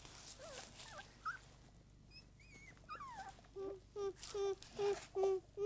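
Puppies whimpering: a few thin, sliding whines, then from about three and a half seconds in a run of short whimpers, about three a second.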